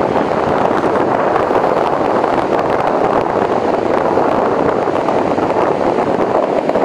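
Wind buffeting the microphone: a steady, loud rushing noise that does not let up.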